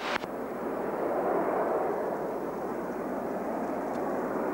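Jet engines of a formation of four aircraft, heard as a steady rushing noise that builds a little over the first second and then holds.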